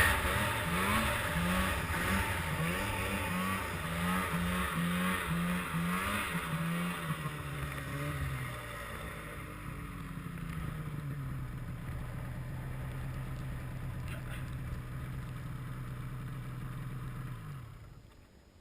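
Arctic Cat M8 snowmobile's two-stroke engine revved in a quick run of about eight short blips, then running at a steady, lower pitch and quieter for the rest of the time. The sound cuts off near the end.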